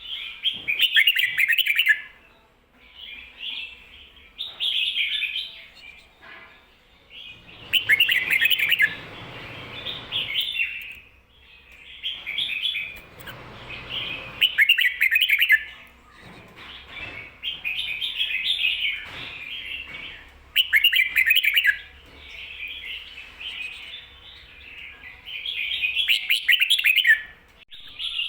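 Red-whiskered bulbul singing its 'ko-ta-ra' song, with the phrases doubled. There are about a dozen short, bright, warbling phrases, each a second or two long, with brief pauses between them.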